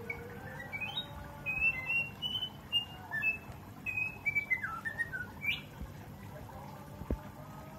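Young green leafbird (cucak ijo) singing: a quick run of short whistled notes, some rising and some falling, that stops after about five seconds. A single faint click comes near the end.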